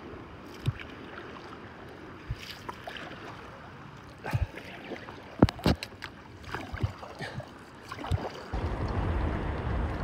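Stand-up paddleboard paddle strokes: water splashing and dripping off the blade, with several sharp splashes and light knocks in the middle, over a low wash of lapping water. Near the end a steadier, louder rushing noise comes in.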